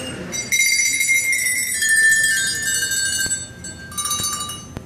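A set of small bells rung together: several high tones start about half a second in and ring on, fading over about three seconds, then a shorter round of ringing near the end.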